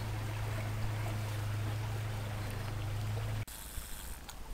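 Running river water with a steady low hum over it. The hum and water cut off suddenly about three and a half seconds in, leaving quieter river ambience with a few faint clicks.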